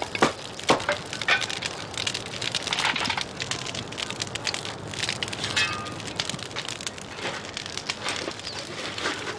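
Wood fire crackling in the firebox of a wood-fired pottery kiln, with many irregular sharp pops and snaps.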